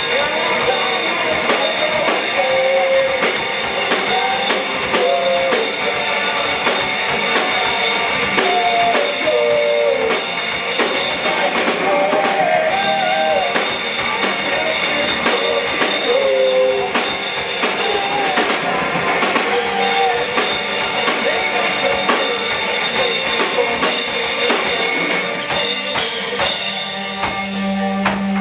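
Rock band playing an instrumental passage: a drum kit keeping a steady beat under guitars, with a lead melody whose notes bend and slide.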